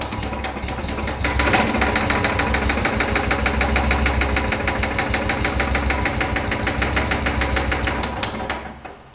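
Freshly rebuilt Royal Enfield Bullet single-cylinder four-stroke engine starting and running with an even, rapid beat, a little louder from about a second and a half in, then switched off near the end.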